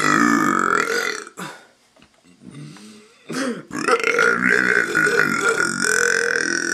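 A man belching in long, drawn-out burps. One trails off about a second in, then comes a quieter pause with a couple of brief noises, and another long burp starts just before the middle and carries on past the end.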